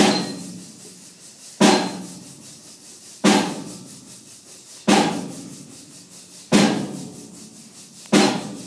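A drum struck in a slow, steady pulse, one sharp hit about every second and a half, five times, each hit ringing out and dying away before the next.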